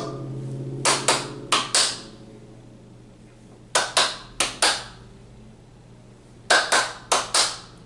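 Hand claps beating out the Colombian pasillo rhythm: three short phrases of a few sharp claps each, separated by pauses of about two seconds.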